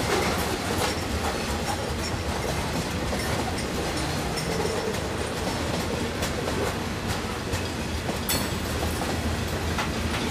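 Freight cars of a manifest train rolling past in a steady rumble, with the wheels clicking over rail joints now and then.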